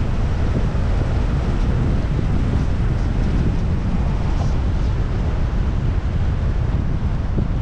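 Wind buffeting the microphone: a loud, steady, rough rumble with no pitched sound in it.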